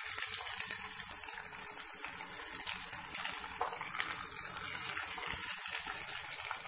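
Peeled almonds and raisins sizzling in hot oil in a non-stick frying pan: a steady high hiss with scattered light crackles.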